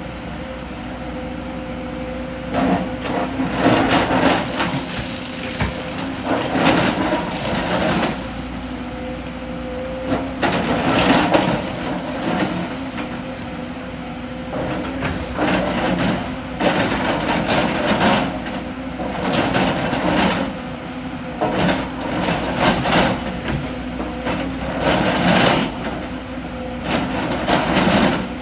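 Hyundai crawler excavator's diesel engine running steadily, with loud scraping and clattering every two to three seconds as its bucket rakes rock and loose stone from the cut face.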